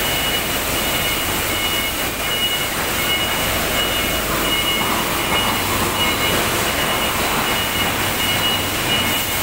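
Roller-chain assembly machinery running on a factory floor: a steady, dense metallic clatter with no let-up. A faint high whistle-like tone comes and goes above it.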